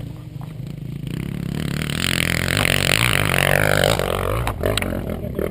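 Kawasaki KX250F four-stroke single-cylinder motocross engine under throttle, revving up and growing louder over about three seconds with a rushing noise over it, then easing off, with a few sharp clicks near the end.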